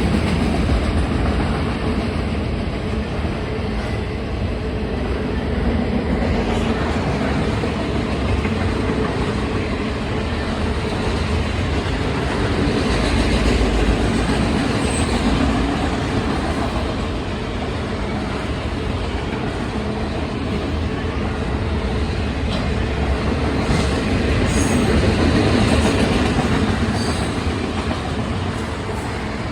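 CSX freight train of autorack cars rolling past, a steady rumble of steel wheels on the rails.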